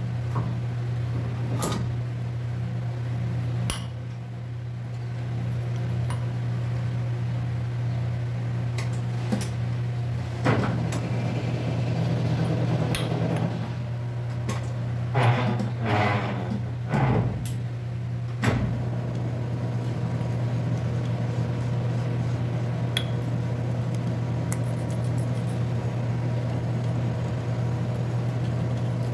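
Metal lathe running slowly with a steady motor hum while a hand die in a die stock cuts an 8 TPI thread on a 1-inch steel bar. There are occasional sharp clicks, and a run of metallic scraping and clinking comes in the middle.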